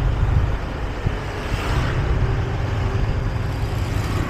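Yamaha scooter riding along a street, its engine running under a steady low rumble of wind buffeting the microphone.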